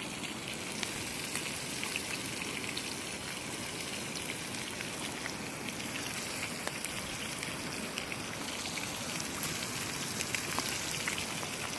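Fish sizzling in a frying pan: a steady hiss with scattered small crackling pops.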